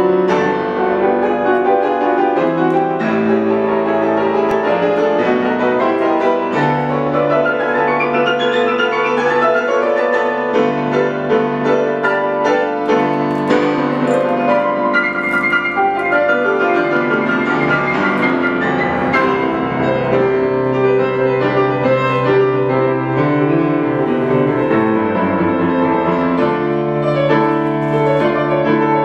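Steinway grand piano played by one pianist: a continuous piece with dense chords and quick sweeping runs of notes up and down the keyboard.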